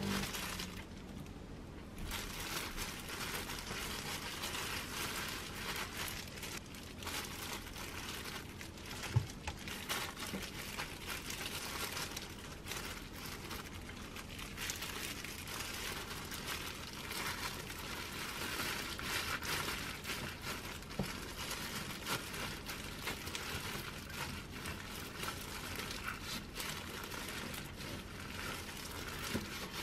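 Disposable plastic gloves crinkling and rustling as hands press rice onto a sheet of gim and roll gimbap on a wooden cutting board, with small taps throughout. One sharper knock comes about nine seconds in.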